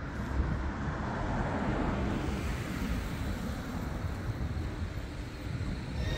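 Steady outdoor background of road-traffic rumble, with wind buffeting the microphone.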